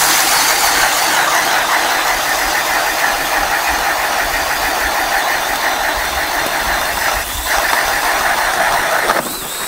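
Power ice auger boring a hole through pond ice: a steady, loud grinding of the motor and the spiral blade shaving ice. It eases briefly about seven seconds in and stops just before the end.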